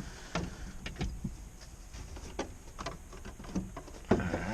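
Plastic interior trim panels of a minivan being handled and fitted back in place: scattered light clicks and knocks, a few separate ones spread through the stretch.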